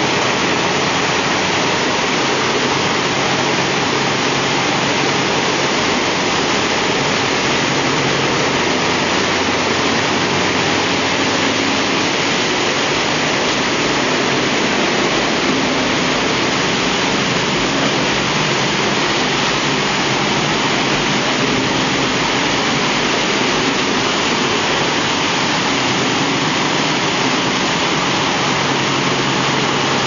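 PP plastic-film crushing and washing line running: a loud, steady mix of machine noise and rushing wash water, with a low motor hum underneath.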